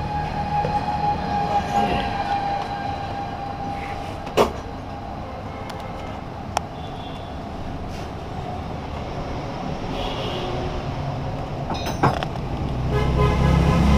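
Steady background rumble of road traffic, with a few sharp clicks and knocks from hand work on a motorcycle, three of them standing out at about four, six and twelve seconds in.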